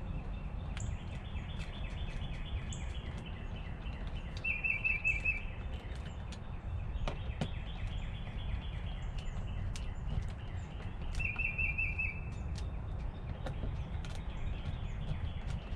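Wild birds calling outdoors: a short, rapid trill heard twice, about seven seconds apart, over fainter drawn-out calls, with a steady low rumble and scattered light clicks underneath.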